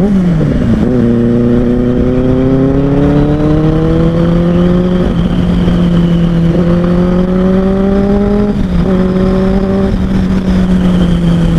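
Benelli 600i's inline-four engine through an IXIL X55 slip-on exhaust, pulling under way. Its note drops in the first second, climbs slowly for several seconds, then drops sharply at about eight and a half seconds, as at a gear change, and runs on nearly level.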